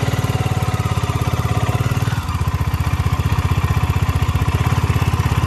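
BSA Gold Star 650's single-cylinder engine running at low revs under way, a steady rapid thump of exhaust pulses that dips briefly about two seconds in.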